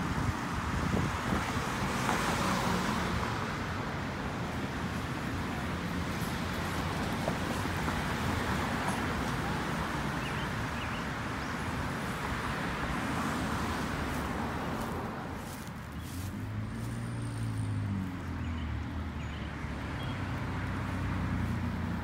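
Road traffic: cars driving past one after another with a steady wash of tyre and engine noise that swells and fades. In the last several seconds a lower engine hum from a heavier vehicle comes in.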